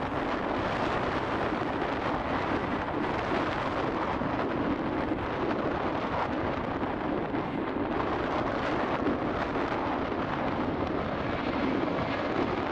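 Boeing 737-800's twin CFM56 turbofan engines at take-off thrust during the take-off roll: a steady, even jet engine rush that holds its level throughout.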